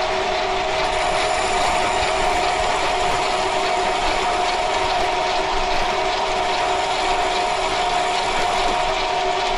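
TV-4 benchtop screw-cutting lathe running under power, its gear train giving a steady multi-tone whine over a continuous mechanical rattle.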